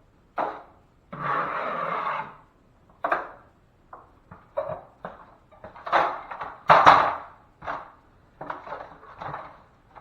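Drywall knife scraping and spreading joint compound on a ceiling patch, applying a tight second coat. Irregular strokes, one longer steady pass about a second in and quicker short strokes after.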